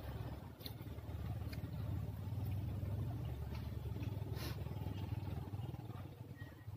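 A steady low rumble that swells a little in the middle, with a few faint clicks and smacks as fingers mix rice and side dishes on a plate and the food is chewed.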